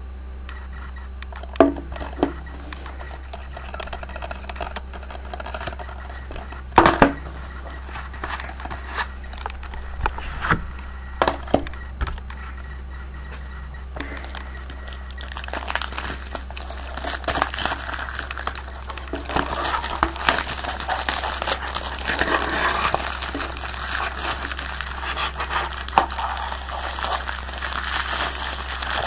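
Plastic DVD case being handled, with a few sharp knocks and clicks, then, about halfway through, steady crinkling as the clear plastic shrink-wrap is torn and peeled off the case.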